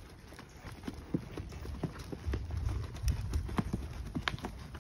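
Hoofbeats of two saddled horses moving off across dirt ground: an irregular run of clip-clop thuds and sharper knocks.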